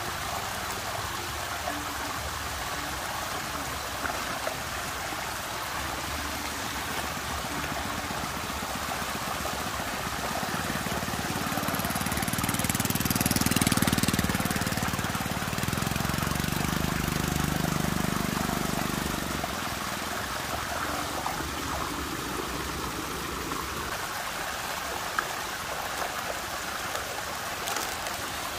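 Water rushing and swirling steadily in a whirlpool, growing louder with a deeper rumble for several seconds around the middle, then settling back.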